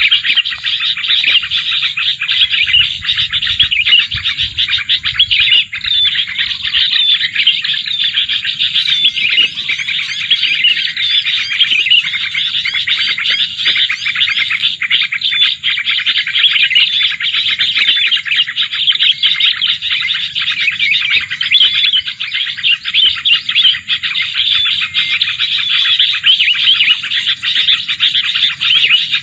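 Plain prinias chirping rapidly and without pause in a loud, dense stream of calls.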